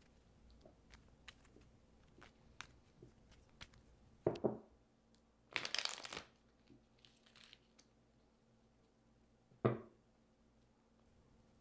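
A deck of playing cards being riffle-shuffled by hand: a brief rapid riffle of cards about five and a half seconds in. A few light clicks come early, a soft thump comes just before the riffle, and another thump comes near the end as the cards are handled.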